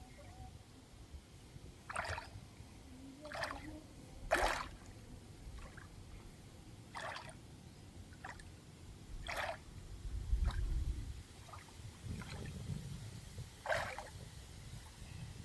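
Water splashing and dripping in short, separate splashes at irregular intervals, about ten in all, over a low rumble.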